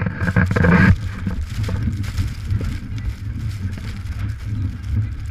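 Blizzard wind buffeting the microphone: an uneven, gusting low rumble, with a louder, rougher gust in the first second.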